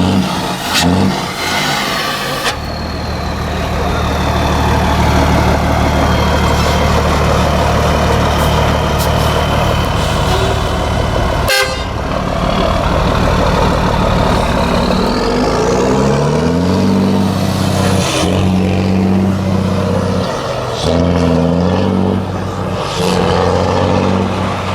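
Gabardo truck's diesel engine rumbling loudly, its pitch stepping up and down in the second half as it changes speed.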